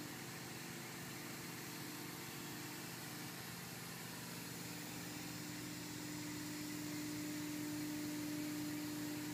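MultiCam 3000 Series CNC router running a sample shape in the air without cutting: a steady machine whine over an even hum and hiss. The whine grows a little louder about halfway through as the head moves.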